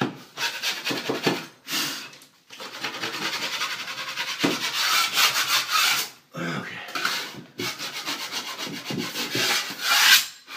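A drywall mud knife scraping along a cracked drywall seam in a run of scraping strokes, some short and some several seconds long, knocking off loose paint and joint compound to prepare the crack for mud and tape.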